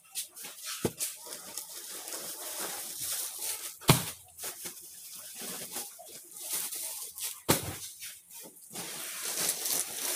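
Plastic sacks and wrapped bales of clothing rustling as they are handled and shifted, with three sharp knocks, the loudest about four seconds in.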